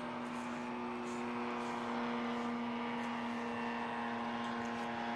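A steady mechanical hum at an unchanging pitch, with a faint hiss underneath.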